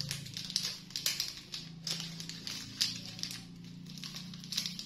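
Thin plastic snack wrapper crinkling in short, scattered rustles as it is handled and peeled open. A low steady hum runs underneath.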